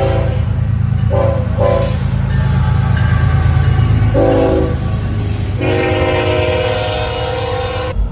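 Diesel locomotive air horn sounding a horn show: two short toots about a second in, another about four seconds in, then a long blast that cuts off abruptly near the end. The low rumble of the passing train runs underneath.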